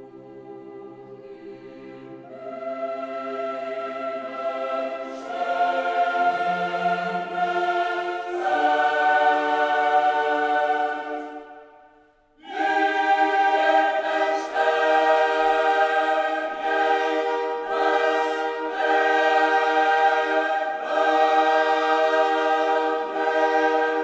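Classical choral music: a choir singing long held chords. It breaks off briefly about halfway through, then comes back in full.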